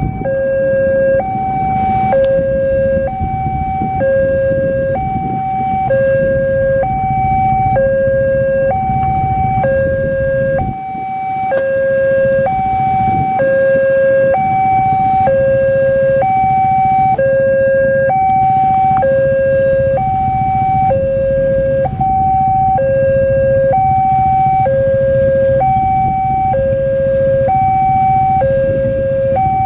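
Electronic railway level-crossing warning alarm sounding a low and a high tone that alternate about once a second, the signal that a train is approaching the crossing. A steady low rumble runs underneath and drops away briefly about eleven seconds in.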